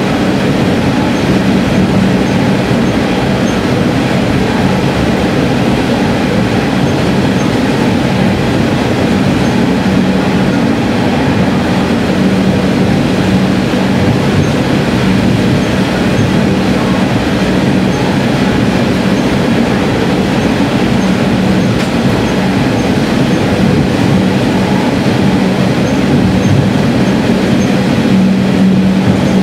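Diesel railcar heard from inside the cab while running in a tunnel: continuous wheel and rail noise over a steady engine drone, which grows a little stronger near the end.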